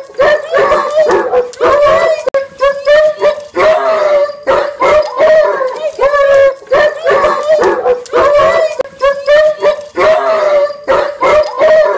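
Dogs howling and whining in excited greeting: a rapid string of short, high, wavering cries, about two a second, with no break.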